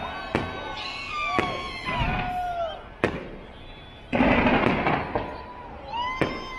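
Fireworks going off: several sharp bangs and a loud stretch of crackling about four seconds in, with rising and falling whistling tones between them.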